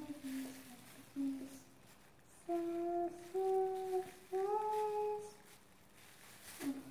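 A person humming a simple tune in short held notes. Three notes step upward in the middle, with pauses between the phrases.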